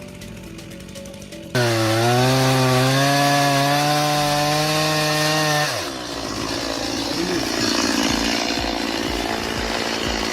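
About a second and a half in, a chainsaw starts running and revs to a steady high pitch for about four seconds. The engine note then breaks up into a rough, noisy grinding as the chain cuts into wood.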